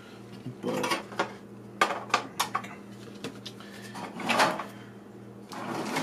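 Pieces of a vintage Marx toy castle playset being handled and fitted together: a scattered series of small clicks and clatters, with a louder rattle about four seconds in.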